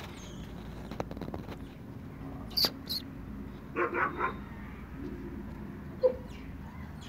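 Dog barking: a quick run of three short barks about four seconds in. Two short high clinks come a second before, and one short, loud sound near the end.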